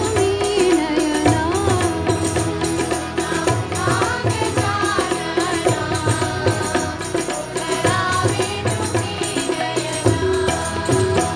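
Women singing a Marathi devotional song together into microphones, accompanied by tabla and harmonium, with a steady percussive beat throughout.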